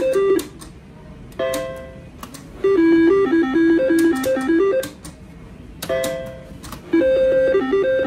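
IGT Triple Diamond three-reel slot machine spinning twice: each spin starts with a brief tone, then a short electronic tune of quick notes plays while the reels turn, with sharp clicks as they stop.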